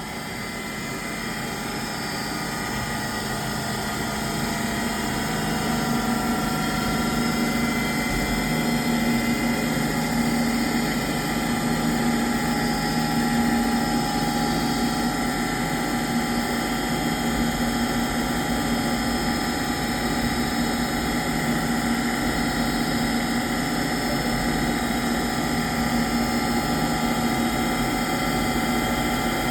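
CNC milling machine running a finishing pass: a steady whine of several fixed tones over a noisy mechanical din. It grows louder over the first few seconds, then holds steady.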